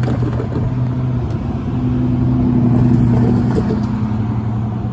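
A motor vehicle's engine running close by: a steady low hum that swells to its loudest about three seconds in, then eases off.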